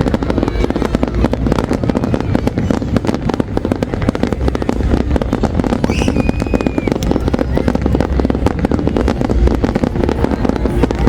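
Fireworks going off non-stop: a dense, unbroken run of bangs and crackles over a low rumble.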